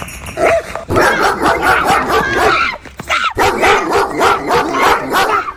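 Dog barking rapidly and repeatedly, with a short break about three seconds in.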